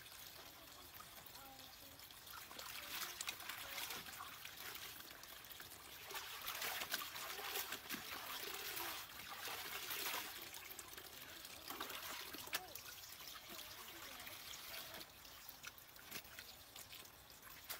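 Water sloshing and trickling in a metal basin as hands wash and scoop in it, with the splashing louder through the middle stretch.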